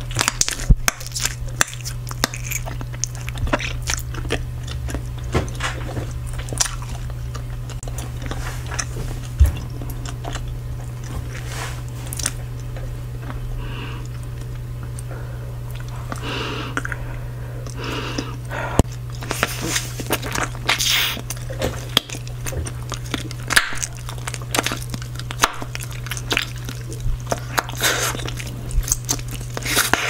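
Bubble gum being chewed and smacked right at the microphone, with frequent sharp wet clicks and pops as bubbles are blown. A steady low hum runs underneath.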